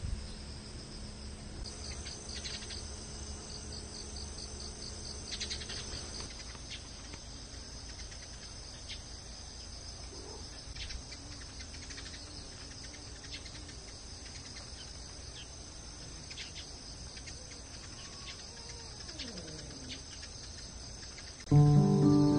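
Crickets chirring steadily in high, continuous tones, with short high chirps scattered through. Music with clear pitched notes comes in just before the end, louder than the insects.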